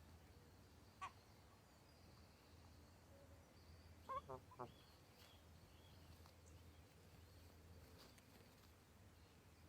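A gosling giving short, squeaky pitched calls: one about a second in, then three quick ones about four seconds in, over near-quiet with a faint steady low hum.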